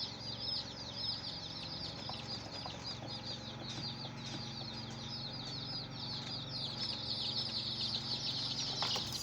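A brood of baby chicks peeping all at once: a dense, continuous chorus of short, high, downward-sliding cheeps.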